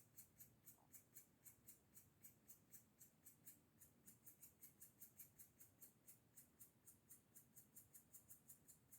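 Very faint, high-pitched ticking, about four ticks a second and slightly uneven in pace: the unexplained recurring noise the owner is worried about.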